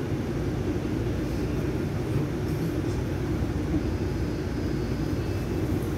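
Steady low rumble of a moving vehicle heard from inside the cabin, even throughout with no distinct events.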